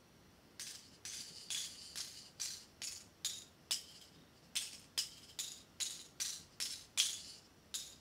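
Dried seed pods of showy rattlebox (Crotalaria spectabilis) flicked one after another with a finger, each pod giving a short dry rattle of the loose seeds inside, in a steady rhythm of about two or three a second.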